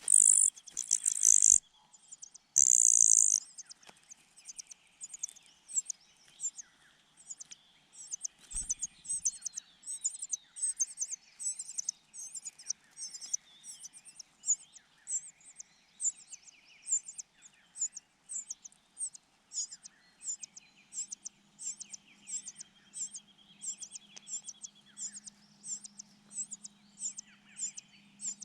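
A cuckoo chick and other nestlings begging for food with short, high-pitched cries, about two a second. Two loud, harsh calls come in the first three seconds. The cuckoo chick is wailing while pinned beneath the other birds.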